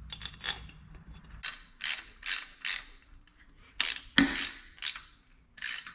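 Socket ratchet being worked on the bolts of an AC compressor bracket: a series of short ratcheting strokes a few tenths of a second apart, with a sharper metal clank about four seconds in.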